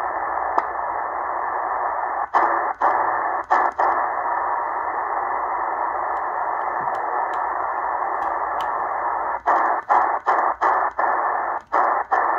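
Eton Grundig Satellit Executive shortwave receiver in upper sideband putting out a steady hiss on 6250 kHz, a signal the listener guesses may be a jammer. The sound cuts out briefly with small clicks as the tuning steps, a few times about two to four seconds in, then in a quick run over the last three seconds as it is tuned up past 6280 kHz.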